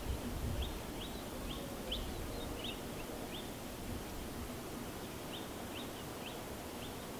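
A small bird repeating short high chirps about twice a second, in two runs with a pause between, over a low steady rumble of outdoor noise.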